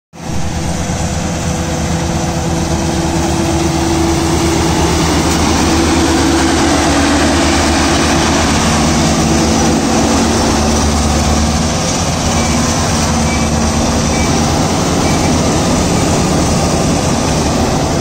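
Ajay rice combine harvester running steadily under load while cutting and threshing paddy, heard close alongside: a constant engine drone mixed with the noise of its cutting and threshing machinery.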